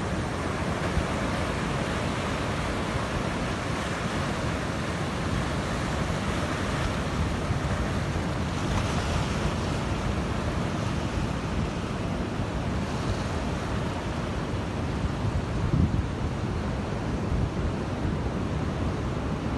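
Sea waves breaking and washing on a beach, a steady surf noise that swells now and then, with wind on the microphone.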